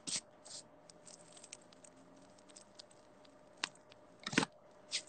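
Scattered faint clicks and small rustles close to the microphone, with a few louder clicks about three and a half and four and a half seconds in, over a faint steady hum.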